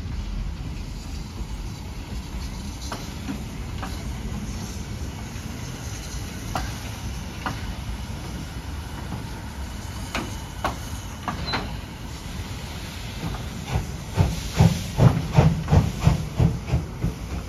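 DB class 50 steam locomotive 50 3654 passing at slow speed, with a steady hiss and rumble broken by scattered sharp clicks. Near the end its exhaust beats come through clearly, a loud, even chuff about three times a second.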